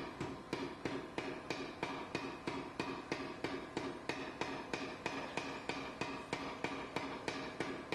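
Power hammer striking a glowing bar of high-carbon leaf-spring steel in a steady run of blows, about four a second, drawing it down to an even taper.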